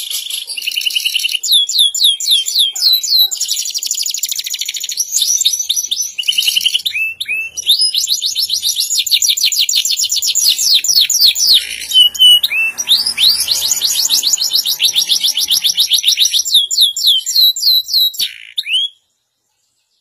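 Canary singing a long, loud song made of fast trills, each a run of quickly repeated high sweeping notes, in several phrases with short breaks. The song cuts off suddenly near the end.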